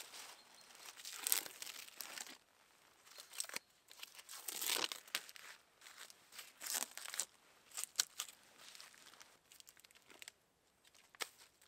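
Dry forest leaf litter rustling and crunching in irregular bursts, with short quiet gaps between them.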